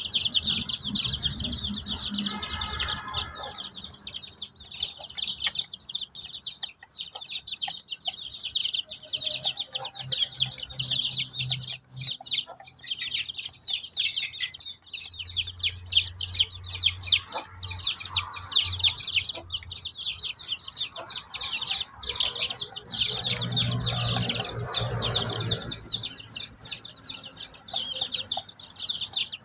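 Young chickens peeping: a dense, unbroken chorus of short, high-pitched, falling chirps from several chicks at once.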